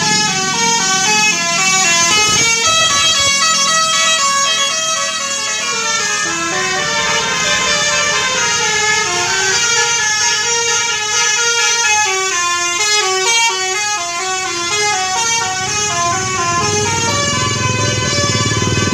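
Bus telolet horn, a multi-tone Basuri air horn, playing a fast winding snake-charmer-style melody, the notes changing several times a second. A low rumble comes in near the end.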